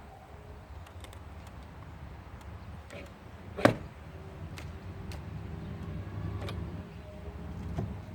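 A single sharp knock a few seconds in, over a low steady rumble, with a fainter knock near the end.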